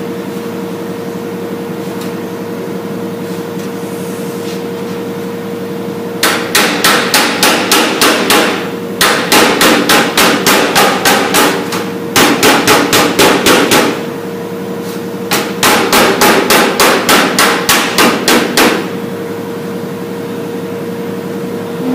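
A mallet beating a sheet-metal panel laid over a tractor hood, rounding its edge to match the hood's curve: quick blows, about four a second, in four runs starting about six seconds in. A steady hum sits underneath.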